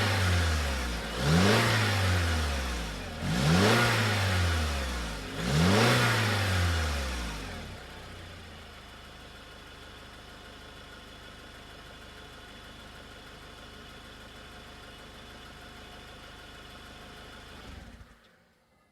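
Car engine revved in quick blips about every two seconds, the pitch rising and falling each time, then settling into a steady, quieter idle that cuts off near the end.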